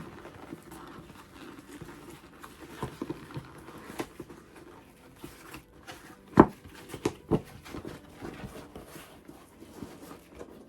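Stiff vegetable-tanned leather bag being forced right side out by hand: the leather squeaks, rubs and creaks as it is squeezed and folded, with a few sharp, louder crunches a little past the middle. Heavy breathing through the nose runs alongside the work.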